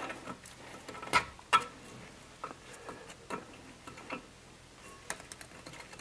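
A thin metal tool scraping and clicking in the rust-packed Allen-head screw recesses of a brake rotor's hub face, clearing out the rust and dirt. Irregular light clicks and scrapes, the sharpest about a second in and again half a second later.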